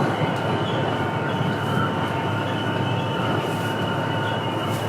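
Subway train running through a tunnel: a steady rumble and rattle of wheels on track, with a thin steady whine over it.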